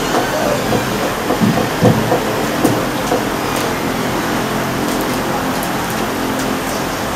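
Steady noisy hiss of a crowded hall, with a few short knocks and bumps between about one and three seconds in.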